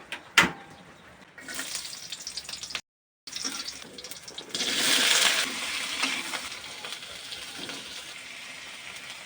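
Water running and splashing, as from a tap into a sink, loudest about five seconds in and then easing off. A sharp knock comes near the start, and the sound cuts out briefly around three seconds in.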